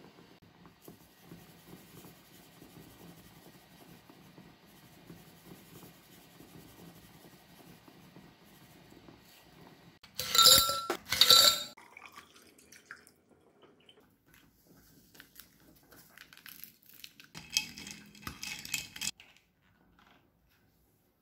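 Faint low hiss of a pot of stew simmering on the hob. About ten seconds in come two loud ringing clinks of glass or tableware. Near the end there is a run of lighter clinks and rattles from dishes and a glass on a serving tray.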